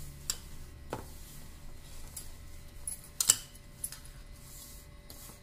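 Hands kneading crumbly semolina dough in a stainless steel plate: soft rubbing and squeezing, with a few light clicks against the metal, the sharpest about three seconds in.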